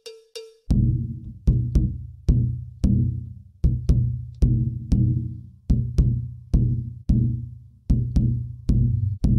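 A surdo bass drum beaten in a steady dance rhythm: deep strikes with short ringing tails, some falling in quick pairs. It starts after a couple of light, ringing metallic taps.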